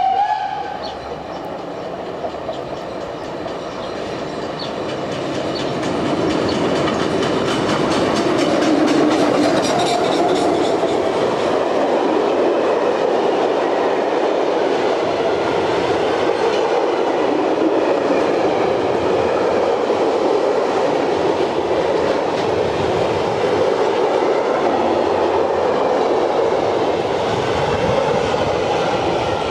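Steam locomotive CFL 5519 gives a brief whistle blast at the start, then its freight train of flat wagons rolls past, with steady wheel clatter over the rail joints that builds over the first few seconds and stays loud.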